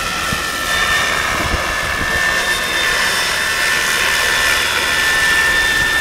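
Radio-controlled scale Apache helicopter in flight: a steady high whine from its power unit and rotors that sets in about a second in and grows a little louder. Gusty wind rumbles on the microphone underneath.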